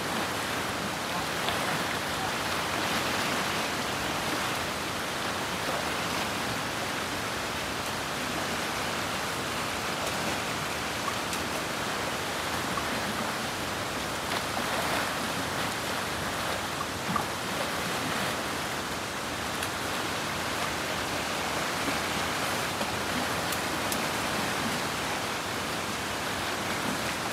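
Steady rush of a fast-flowing shallow river, with water churning and splashing around wading elephants.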